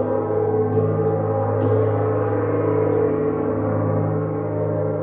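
Large handheld gong, played with a soft mallet, ringing on in a long, full hum of many blended tones.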